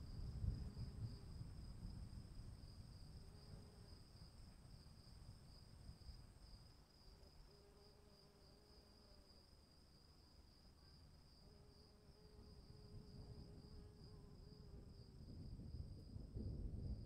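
Faint outdoor ambience: insects trilling high and steady without pause, with a low rumble near the start and again near the end.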